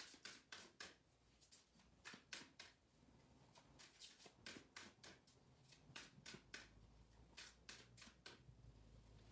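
Faint, irregular string of soft clicks and snaps as a deck of oracle cards is fanned through and handled, the cards flicking and sliding against each other.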